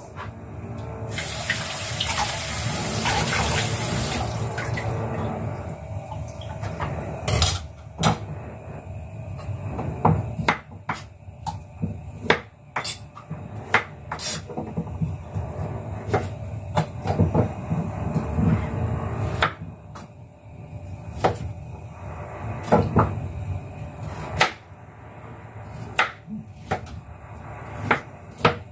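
A kitchen tap runs for a few seconds near the start, water splashing into the sink as carrots are rinsed. After that come scattered scraping strokes and knocks as the carrots are peeled and then cut with a knife on a chopping board.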